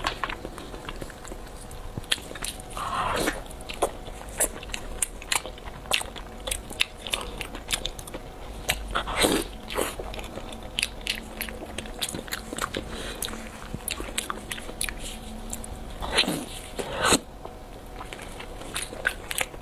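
Close-miked eating sounds of grilled eel in spicy sauce: sticky bites, chewing, and wet lip and mouth clicks, with a few longer, louder slurping bites.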